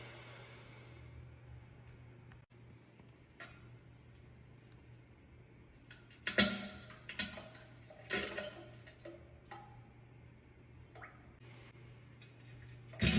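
A few short fart sounds between about six and eight and a half seconds in, the first the loudest, over a steady low hum.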